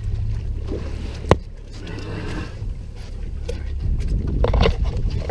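Steady low rumble of wind and sea around a small fishing boat, with one sharp click a little over a second in and a few short knocks near the end.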